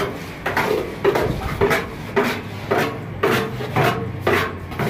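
Steel plastering trowel scraping cement mortar out of a metal pan and flinging it onto a wall, a rasping scrape about twice a second.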